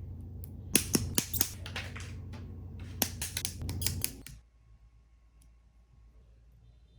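Hobby nippers snipping plastic model-kit parts off the runner: two quick clusters of sharp clicks, the second about two seconds after the first. A low steady hum underneath stops about four seconds in.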